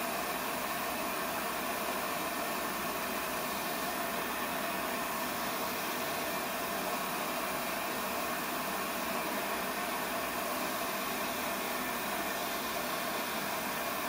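Lopet propane bench burner running with a focused flame: a steady, even hiss with no change in level.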